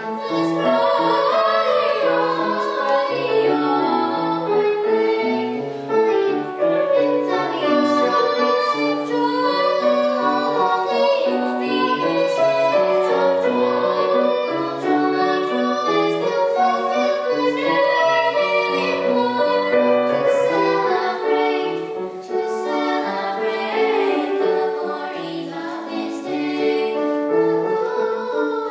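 Girls singing a song over instrumental backing music, with no break.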